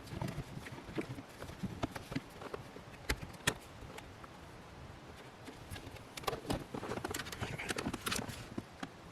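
Handling noise: irregular clicks and knocks of plastic parts and cable being fitted by hand, with two sharp clicks about three seconds in and a busier run of knocking and rustling near the end.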